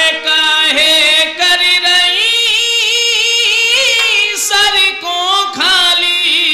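Hindi folk song: a high voice sings a long, wavering melody in drawn-out phrases without clear words, over the song's instrumental backing.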